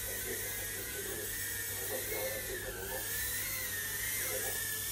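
Micro FPV quadcopter flying, its tiny motors and propellers giving a high whine that wavers up and down in pitch as the throttle changes.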